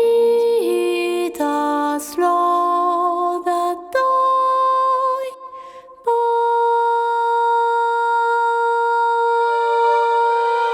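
Background music: wordless singing on long held notes, with a few note changes early, a short drop in level about five seconds in, then one long held chord.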